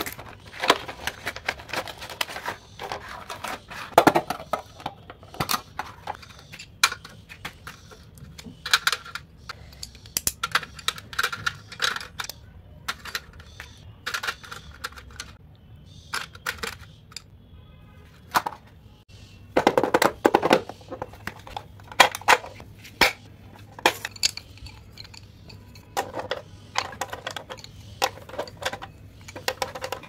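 Hands handling stationery: irregular clicks, taps and rustles as cardboard packaging is opened, a tin pencil case is handled and pencils are set into a plastic pencil box, with a louder run of rustling and knocks about twenty seconds in.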